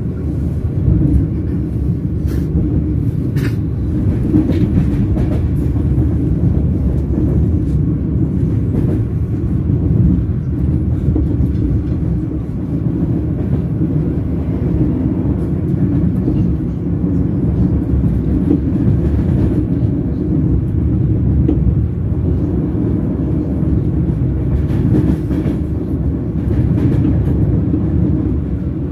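Train wheels rolling on the rails: a steady low rumble with a few sharp clicks.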